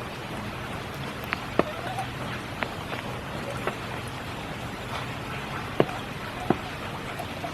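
Steady spring rain falling, with heavier drops landing now and then as sharp, separate taps; the loudest come about a second and a half in and again near six seconds.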